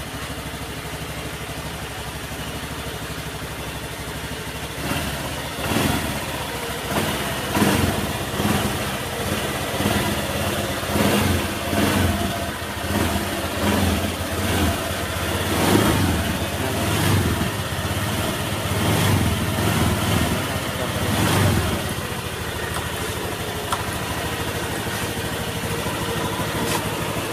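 Honda Airblade 150 scooter's single-cylinder engine, running on a freshly fitted NGK Iridium spark plug. It idles steadily, is blipped on the throttle again and again from about five seconds in, and settles back to idle near the end.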